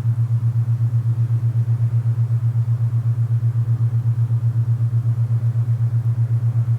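Low steady binaural-beat tone pulsing rapidly and evenly, over faint soft wind noise.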